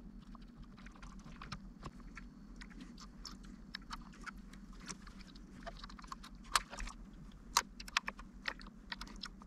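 Light clicks, ticks and scrapes of a small screwdriver and fingers on the plastic case and parts inside an opened RC transmitter while a replacement toggle switch is fitted. The clicks are scattered and irregular, with a few sharper ones in the second half.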